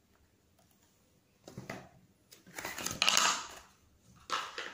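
Handling noise from the unboxed packaging: short bursts of rustling and scraping after a quiet second and a half, the loudest and longest about three seconds in.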